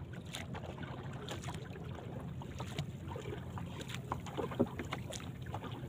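A hand paddle stroking through calm sea water beside a small boat's hull: soft dips and splashes with scattered light taps, over a steady low rumble. One sharper tap comes about three-quarters of the way through.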